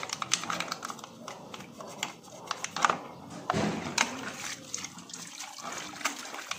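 Water sloshing and splashing in a plastic bucket as a muddy plastic instrument-cluster housing from a Honda Civic EG is dipped and rubbed clean by hand, with small clicks and knocks of plastic. The biggest splash comes about three and a half seconds in.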